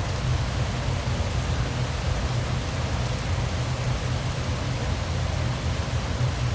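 Steady rain falling, an even hiss with no distinct drops standing out, over a constant low rumble.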